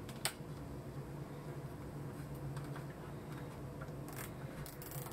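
Plastic cable tie being fastened around corrugated cable conduit: a sharp click just after the start, then a few short ratcheting rasps near the end, over a steady low hum.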